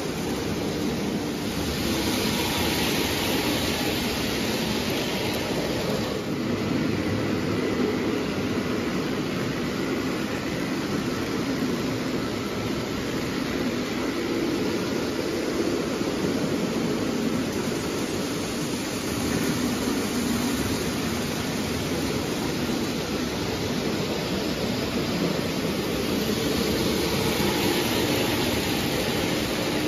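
O-gauge Lionel toy trains running on three-rail tubular track: a steady rolling rumble of metal wheels and motors. It grows louder and hissier twice, about two seconds in and again near the end as a locomotive passes close.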